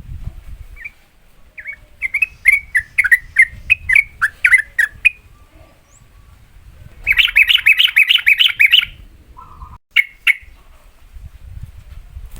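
Yellow-vented bulbul singing in quick rolling phrases: a run of about nine short bubbling notes, then a faster, louder burst of notes about seven seconds in, and one last note near the end.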